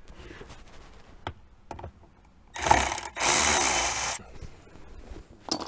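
Cordless electric ratchet running in two short bursts, about half a second then about a second, as it backs a screw out of a plastic dashboard. A few light clicks come from the socket being seated, with another click near the end.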